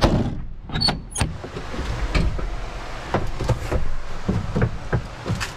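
Someone moving about inside a pickup truck's tall camper shell: irregular knocks and clunks against the shell and truck bed, with a short squeak and clicks about a second in.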